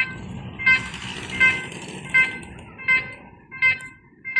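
Railway level-crossing warning bell dinging evenly, about one ding every three-quarters of a second, seven times, each ding dying away quickly, over a low rumble.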